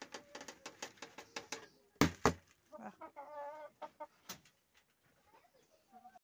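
Hens pecking feed from a plastic poultry feeder, a quick run of sharp taps on the trough, then two loud knocks about two seconds in. A hen then gives a short wavering clucking call, followed by a few scattered pecks.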